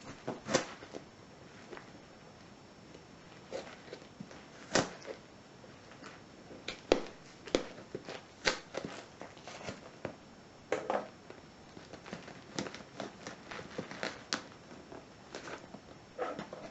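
A cardboard parcel box being worked open by hand, with irregular sharp clicks, cracks and rustles as its tape and flaps are pried loose.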